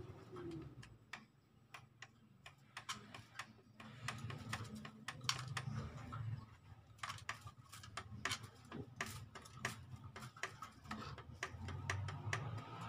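Push buttons on a Samsung CRT TV's front panel clicking as they are pressed over and over, a few clicks at first and a quick irregular run of them from about four seconds in, over a low hum.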